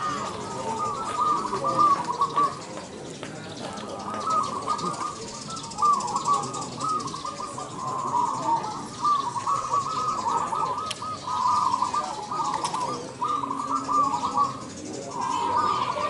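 Zebra doves (perkutut) cooing, several phrases overlapping one another almost without a break, with a short lull about three seconds in.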